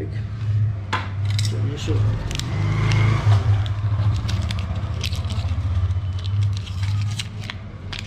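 Crackling and clicking of an instant-glue blister pack's card and plastic being torn and peeled open by hand, over a steady low hum.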